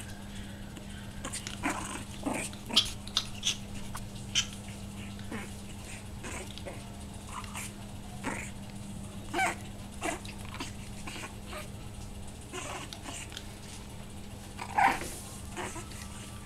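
Pekingese puppy giving scattered short, sharp yaps and small growls as it plays with a hand, the loudest yap near the end.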